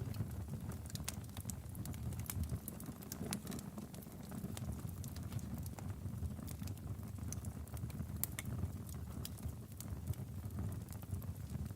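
Logs burning in a fireplace: a steady low rumble of flames under irregular sharp crackles and pops.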